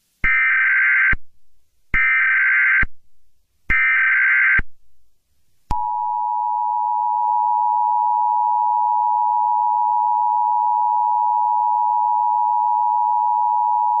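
Emergency Alert System SAME header: three identical bursts of warbling digital data tone, each just under a second long. About a second later comes the EAS two-tone attention signal, a steady dual tone held for about eight seconds.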